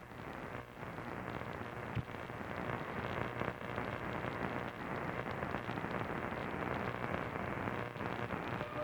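Shortwave radio receiver hiss and static: an even rush of band noise that swells over the first second or so, with one sharp crackle about two seconds in.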